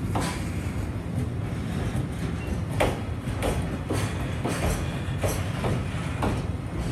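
Container wagons of a freight train rolling past at speed: a steady low rumble with repeated clacks as the wheels cross the rail joints.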